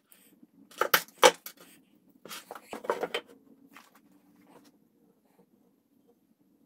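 Steel chain clinking and rattling as it is handled and cut with diagonal cutting pliers, with two sharp metallic snaps about a second in and more clatter a second or so later. After that it goes quiet.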